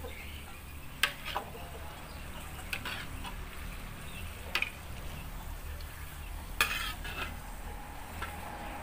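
Dough frying in shallow oil in a steel wok with a light sizzle, while a metal spatula turns it, clinking and scraping against the wok a handful of times, a second or two apart.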